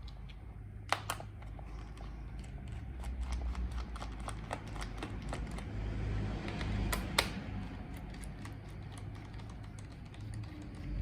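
Irregular light clicks and taps of hard plastic and small parts being handled, with two sharper clicks about a second in and about seven seconds in, over a low handling rumble.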